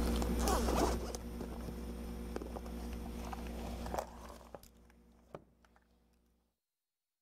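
Rustling and clicking handling noises over a steady low hum from a live open microphone. The sound drops down about a second in and again about four seconds in, then cuts off to silence about six and a half seconds in.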